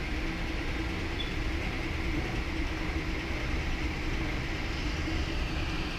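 Alunar M508 3D printer powered up and trying to move its axes: a steady mechanical hum with a faint held tone from its stepper motors and fan, while one axis motor fails to move. The builder suspects a faulty flex coupler.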